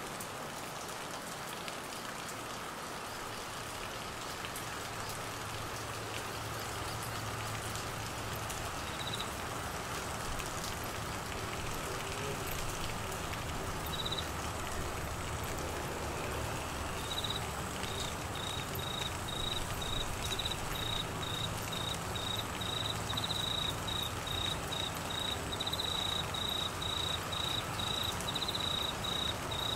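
Steady heavy monsoon rain falling on trees, grass and floodwater. A cricket chirps once or twice, then from a little past halfway keeps up a regular high-pitched chirp about twice a second over the rain.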